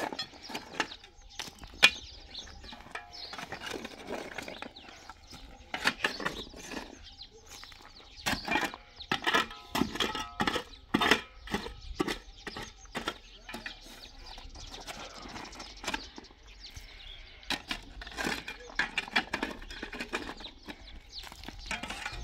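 Steel shovel blade scraping and striking stones as rocky soil is dug and scooped: runs of sharp clinks and scrapes that come in bursts.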